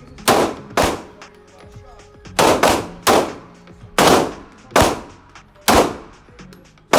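Pistol shots at a shooting range, about eight or nine fired at an uneven pace, some less than half a second apart. Each crack rings out and fades.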